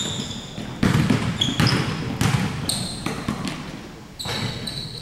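Basketballs bouncing on a gym's hardwood floor: several separate thuds, each echoing in the large hall, with short high-pitched sneaker squeaks in between.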